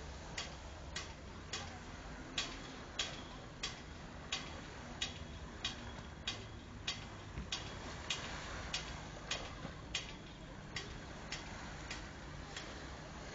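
Regular sharp ticks, about three every two seconds, like a clock, over a low steady hiss.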